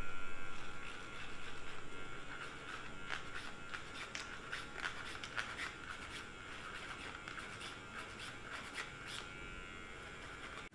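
Electric hair clipper humming steadily. Short sharp clicks come through its hum for several seconds in the middle.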